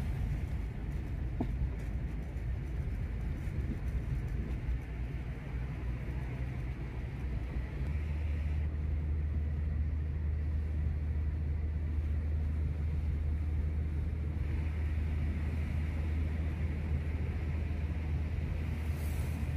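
Car cabin noise while driving on a highway: a steady low rumble of engine and tyres on the road, the low drone growing heavier about eight seconds in.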